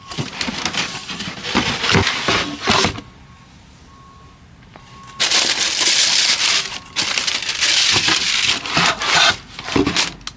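Packaging crinkling and rustling as it is handled, in loud, uneven bursts, with a quieter pause from about three to five seconds in.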